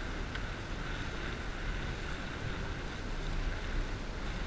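Steady wind noise on the microphone over a small boat on open water, with a constant rush and no distinct events.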